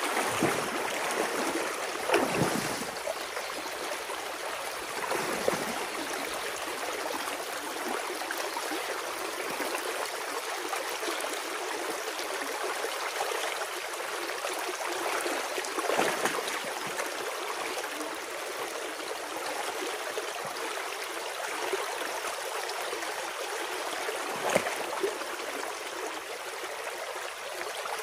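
Water rushing and gurgling through a breached beaver dam in a shallow reed-lined channel, a steady stream noise. Four short, sharper splashes break through it, about two, five, sixteen and twenty-four seconds in.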